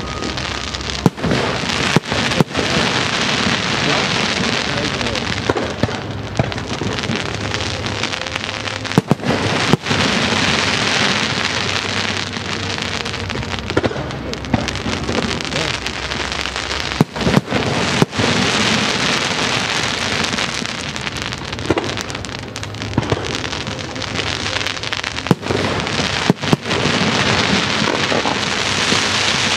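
Fireworks display: shells bursting with sharp bangs at irregular intervals, often in quick pairs, over a dense, unbroken crackling noise.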